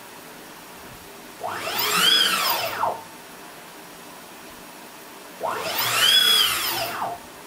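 Closed-loop 12 Nm stepper motor driving the Warco GH18 mill's Z-axis ballscrew at full jog speed, moving the head twice. Each move is a whine of about a second and a half that rises in pitch as the axis speeds up and falls as it slows to a stop.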